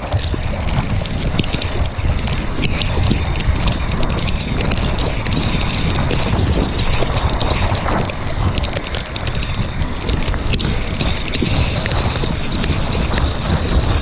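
Wind buffeting the microphone of a camera on a mountain bike riding in the rain, a loud steady rumble with frequent small clicks and knocks.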